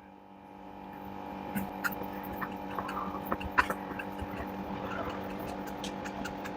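A steady mechanical hum with scattered light clicks and taps, like parts being handled and fastened.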